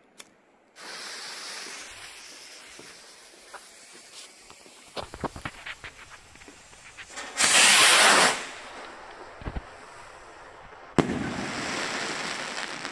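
Tai Pan First Blood III firework rocket going off. The fuse hisses and crackles, then about seven seconds in the rocket launches with a loud whoosh lasting about a second. Near the end it bursts with a sharp bang, followed by about two seconds of noise.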